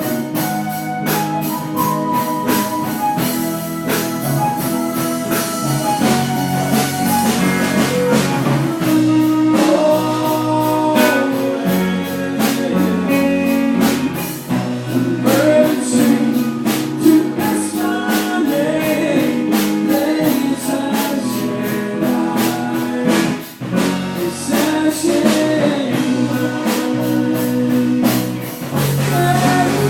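A rock band playing live: a guitar and a drum kit keep a steady beat, with a singing voice over them.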